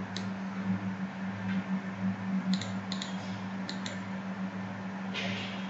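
Computer mouse clicking a handful of times, short sharp clicks, over a steady low hum, with a brief rustle near the end.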